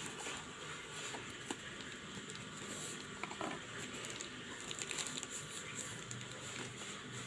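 Faint handling noises, small scattered taps and rustles of a smartphone and its packaging being handled, over a steady hiss.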